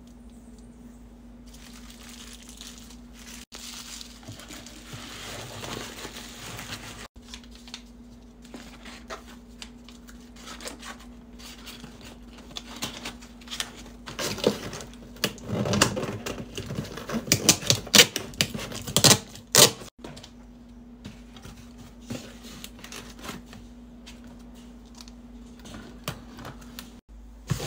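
Packing sounds: plastic bubble wrap crinkling and crackling around small candle jars, then a cardboard box being handled and sealed with a handheld packing-tape dispenser, with the loudest stretch of rapid rips and clicks about halfway through. A steady low hum runs underneath.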